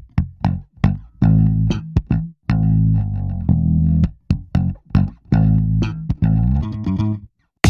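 Background music led by a plucked bass guitar line, its low notes starting sharply one after another between crisp percussive hits. It drops out for a moment near the end.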